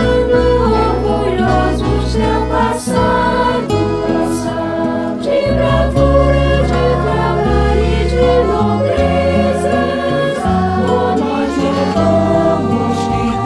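Mixed choir of men's and women's voices singing a slow hymn in Portuguese, moving through long held chords.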